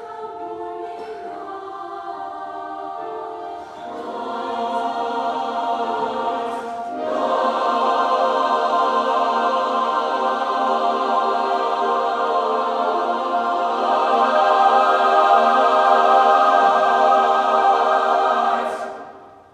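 A large mixed-voice high school choir sings long, held chords. It grows louder a few seconds in and again at about seven seconds, then all the voices cut off together near the end.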